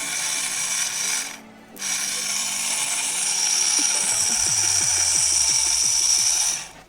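Homemade mini grinder built from a 12 V 775 DC motor, running with a steady high-pitched whine. The whine cuts off briefly about a second and a half in, then resumes until just before the end.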